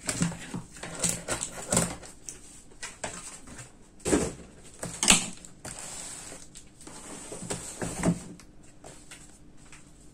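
Hands handling a cardboard box on a desk: irregular scrapes, taps and knocks as it is pushed and turned, with the loudest knocks about four and five seconds in and again near eight seconds.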